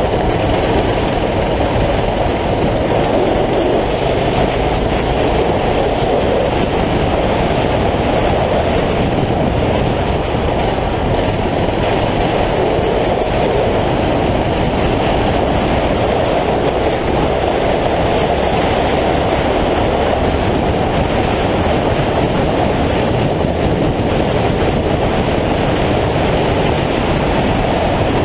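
9 hp kart engine running under load at racing speed, heard onboard as a loud, steady rumble mixed with wind rush on the microphone.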